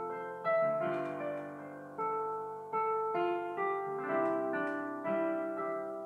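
Sonata LP8880 digital piano played in a piano voice: a slow passage of chords and melody notes, each struck and left to fade, a new one about every half second to a second.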